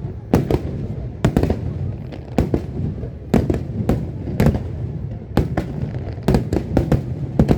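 Aerial fireworks shells bursting in quick succession, a string of sharp bangs often coming in pairs or clusters over a continuous low rumble.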